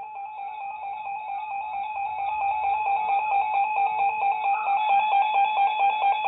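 Weather radio emergency alert attention tone: a steady, shrill electronic tone with a fast, even flutter, growing louder over the first few seconds. It signals that a warning message is about to be read.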